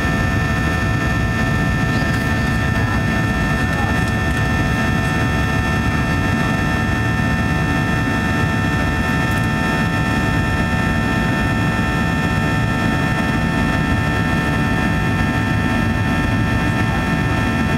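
Cabin noise of a Boeing 737-800 climbing after takeoff, heard from a seat beside its CFM56-7B turbofan engine: a steady low rumble with several steady whining tones above it.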